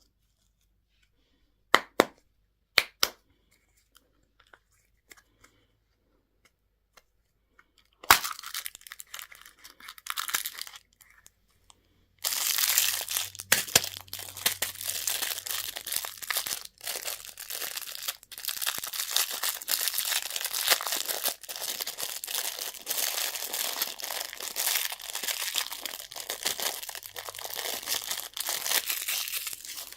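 A few sharp clicks, then a candy wrapper being torn open and crinkled close up, in a short burst about 8 seconds in and then steadily from about 12 seconds on.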